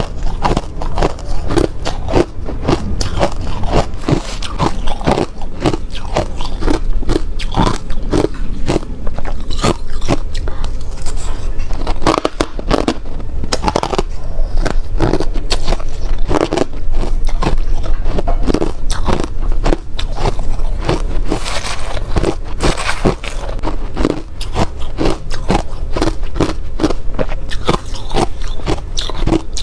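Close-miked crunching of hard crushed ice being bitten and chewed, a rapid run of sharp cracks and crackles.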